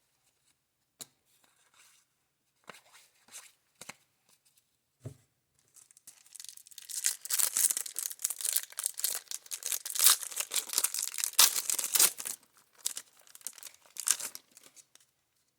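A trading-card pack wrapper being torn open and crinkled for about eight seconds, after a few faint clicks of cards being handled.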